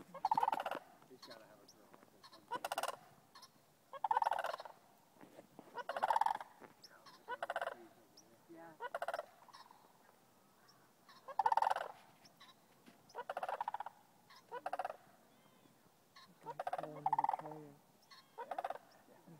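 Sandhill cranes giving their rolling, rattling calls, one group answering another. About a dozen loud calls come in irregular bouts a second or two apart.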